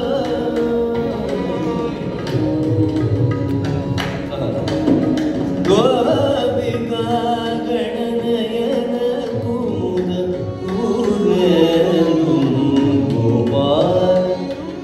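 Male Carnatic vocalist singing in raga Bageshri with wide sliding pitch ornaments, accompanied by violin following the melody and mridangam strokes over a tanpura drone.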